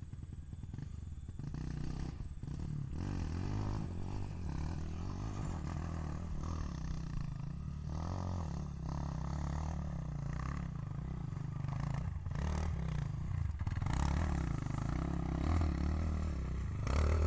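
Trail motorcycle engine running and revving off-road, its low note rising and falling and growing louder toward the end.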